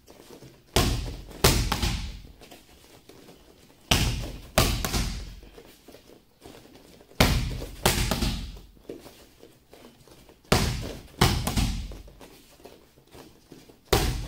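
Boxing gloves smacking into focus mitts during jab-jab-cross combinations. The hits come in quick clusters of two or three, a new cluster about every three seconds, and each hit has a short echo.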